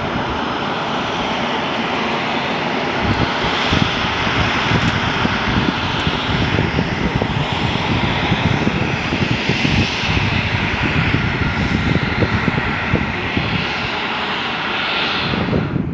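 Turbofan engines of a USAF C-17A Globemaster running loud and steady, with a high whistling hiss that swells and eases several times over the roar.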